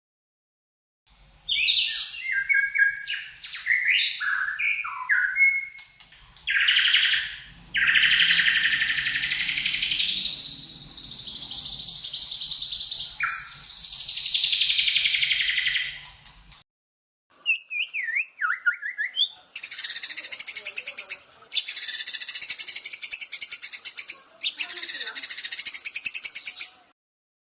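Songbird singing loud, fast fighter-style song: quick chirps and trills, then long sweeping phrases, then rapid repeated runs. The song comes in several segments that start and stop abruptly, with short silences between them.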